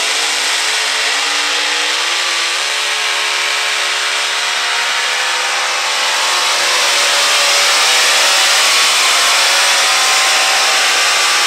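Engines of a multi-engine unlimited modified pulling tractor at full throttle under load. The pitch climbs over the first two to three seconds as the tractor launches, then holds steady as it pulls down the track, growing a little louder past the middle.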